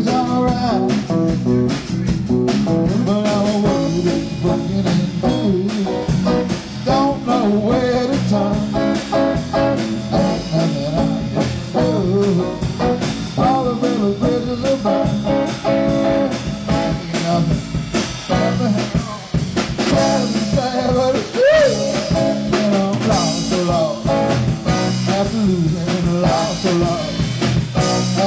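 Live blues-rock band playing: guitars over a drum kit, with bending, wavering guitar lines.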